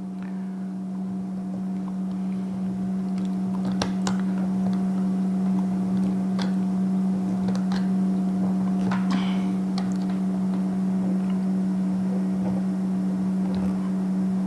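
A steady low machine hum, with a few light clicks of a screwdriver on small screws as the immobilizer is unscrewed from an ignition lock cylinder.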